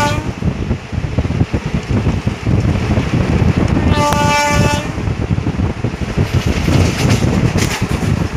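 An express passenger train running at speed, heard from on board: a steady rumble and rail clatter. A train horn sounds once, under a second long, about four seconds in, and the end of an earlier blast cuts off right at the start.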